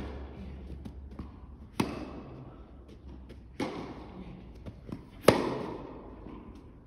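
Tennis rally on an indoor carpet court: sharp pops of rackets striking the ball about every one and a half to two seconds, each ringing on in the hall's echo, with fainter ticks of the ball bouncing on the carpet between. The loudest hit comes near the end, the near player's forehand.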